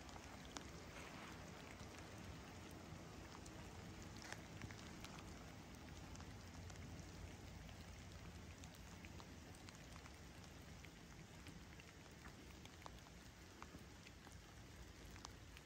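Faint light rain falling on lake water: a steady hiss scattered with the ticks of single drops.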